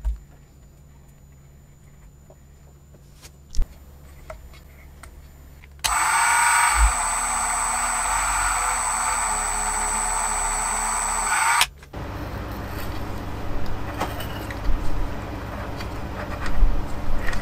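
Handheld rotary tool spinning the miniature four-cylinder flathead engine's crankshaft to prime its oil pump: a loud, steady high-pitched motor whine starting about six seconds in and cutting off suddenly about six seconds later. It follows a few light handling clicks, and a lower steady mechanical hum with scattered clicks comes after it.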